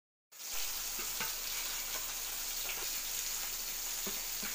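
Fish pieces shallow-frying in oil on an iron tawa: a steady sizzle that cuts in abruptly a moment in, with a few light clicks and scrapes of a steel spatula.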